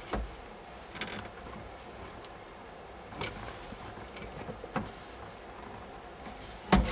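Scattered plastic clicks and knocks from handling the OnStar module and working loose the wiring connectors plugged into its back, with a louder knock near the end.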